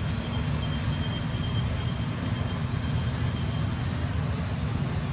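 Steady low rumble of outdoor background noise, the kind that wind or distant traffic makes on a camera microphone, with no monkey calls standing out.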